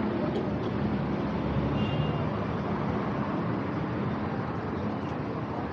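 Steady city street noise, mostly car traffic running along the road beside the sidewalk.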